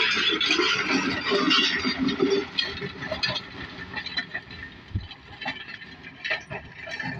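Tractor running, with irregular rattles and knocks, louder in the first few seconds.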